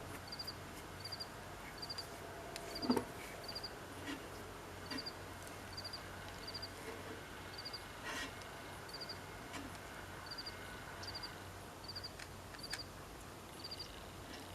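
Faint cricket chirping: short chirps of three or four quick pulses, repeating every second or so. A single knock about three seconds in is the loudest sound, and a faint low hum sits underneath.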